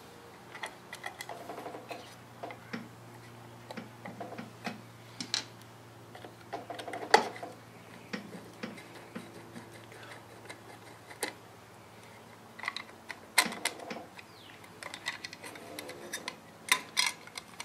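Scattered light clicks and taps of a hand screwdriver working the screws of a circuit board mounted in a metal inverter housing, with a few sharper clicks about seven and thirteen seconds in.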